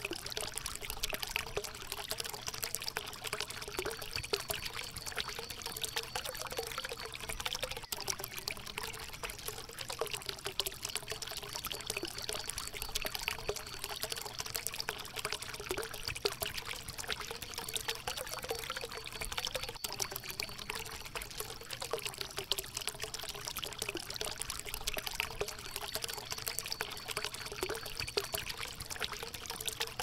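Running water: a stream or small cascade flowing and splashing steadily over rocks.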